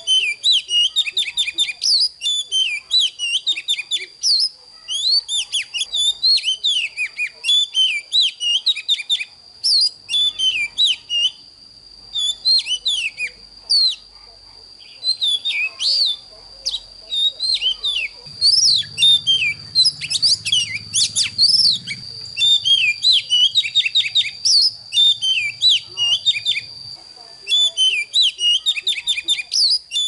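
Oriental magpie-robin singing: fast, continuous runs of varied sweeping whistles and chirps, broken by brief pauses. A thin, steady high-pitched tone runs underneath.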